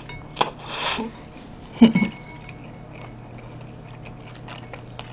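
A person eating cold noodles in broth (mul-naengmyeon): a short slurp in the first second, a louder brief sound about two seconds in, then quiet chewing with small wet clicks.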